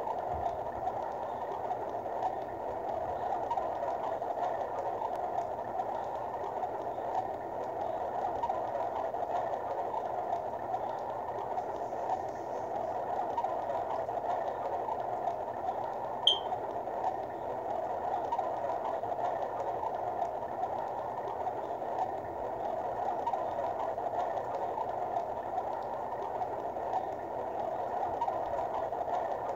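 Steady, muffled rushing wash of underwater ambience from a live-wallpaper app's sound loop. A single short sharp click about halfway through.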